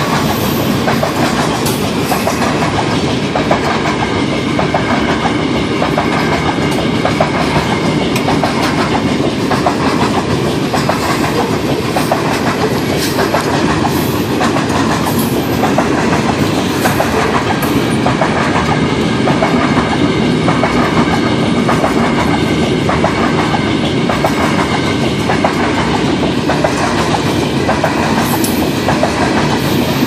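Covered hopper cars of a CN potash freight train rolling past: a steady rumble with a quick clickety-clack of wheels over the rail joints.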